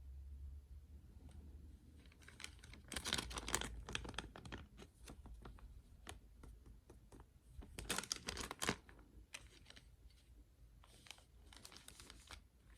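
Small plastic packaging crinkling and crackling in the hands as a mystery bag is handled and opened, in three short bursts.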